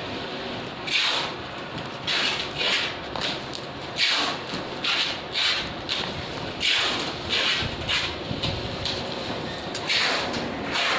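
Clear plastic wrapping on a cloth bale crinkling and rustling in repeated short bursts, about one or two a second, as it is cut and torn open by hand.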